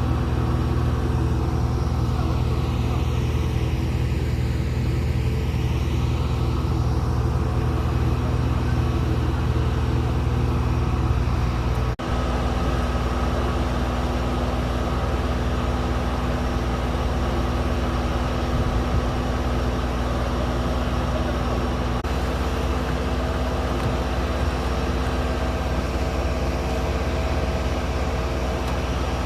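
Large engine running steadily with a deep, even hum, as of heavy lifting machinery at a dockyard; the sound drops out for an instant about twelve seconds in.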